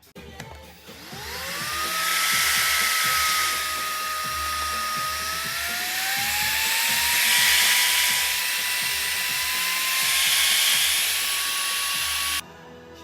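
Plus Minus Zero G040 cordless stick vacuum cleaner switched on: its motor spins up with a rising whine, runs with a steady high whine and airflow rush, steps up in pitch about six seconds in, and cuts off abruptly near the end.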